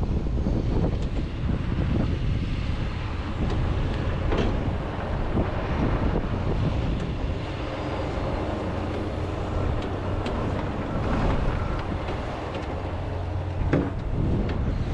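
John Deere 210G excavator's diesel engine running steadily under load as it digs into frozen peat moss, with a couple of sharp knocks, one about four seconds in and one near the end.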